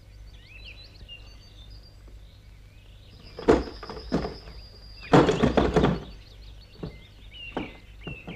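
Faint bird chirps, then a series of wooden knocks and clatter, loudest in a rattling run about five seconds in, as a small wooden spoked wheel rolls and wobbles down to rest flat on the ground; a few lighter knocks follow.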